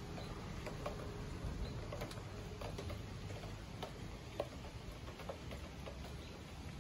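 Outdoor ambience under a thunderstorm: a low, steady rumble with scattered light ticks.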